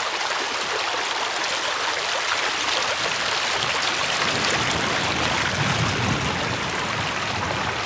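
Small, shallow stream running fast over pebbles: a steady rush and babble of water.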